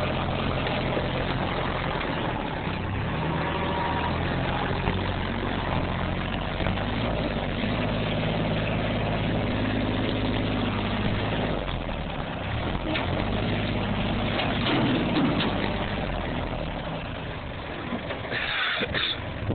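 Kubota compact backhoe's diesel engine running, its pitch rising and falling several times as it takes load, with a few sharp knocks partway through.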